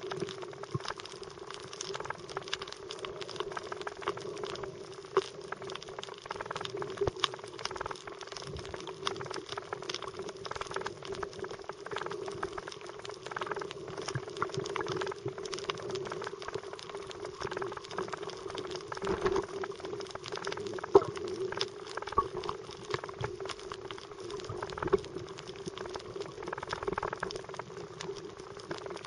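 Underwater sound over a coral reef, recorded with the camera below the surface: a dense, constant crackle of small clicks over a steady low hum.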